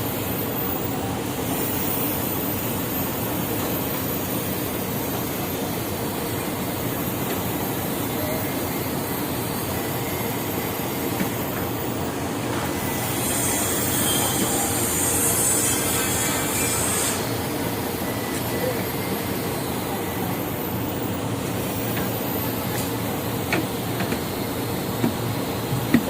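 Diesel-driven concrete pump and transit mixer truck running steadily during a concrete pour, with a hissing surge lasting about four seconds midway and a few sharp knocks near the end.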